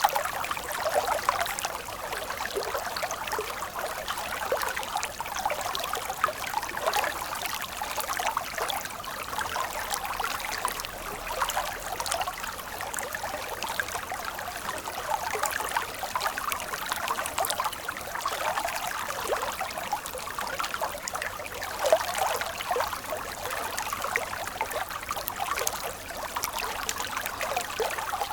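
Shallow stream of water flowing steadily, a continuous rushing trickle full of small quick splashes.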